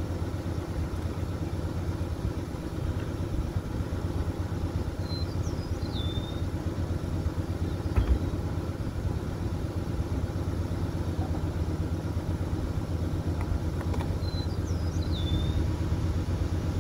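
1968 Ford Galaxie's 390 four-barrel V8 idling steadily, a low even rumble, with a single thump about eight seconds in as the convertible top is pushed down.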